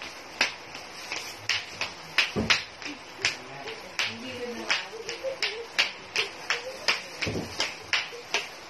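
A run of sharp clicks or taps, about three a second, with two heavier thumps, one about two and a half seconds in and one near the end.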